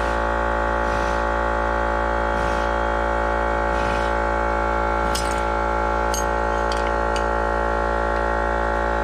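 A steady droning hum made of several fixed tones, with a few light metallic clinks between about five and seven seconds in.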